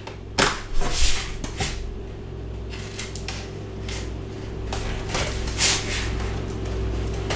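A knife blade slitting clear packing tape on a small cardboard box: a string of short scratchy cuts and scrapes against the cardboard. A steady low hum runs underneath.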